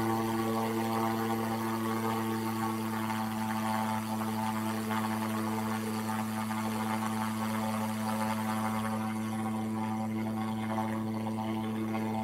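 A steady low-pitched drone with evenly spaced overtones and a faint hiss above it, unchanging throughout.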